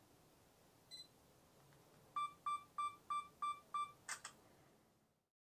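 Sony HX90 compact camera beeping: one short higher beep about a second in, then six quick evenly spaced self-timer countdown beeps, followed by a double shutter click just after four seconds.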